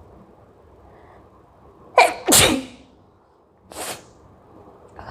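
A woman sneezing once, loudly: a sharp catch about two seconds in breaking into a full voiced sneeze that falls away, then a short breathy sound about a second later. It is a real, unforced sneeze.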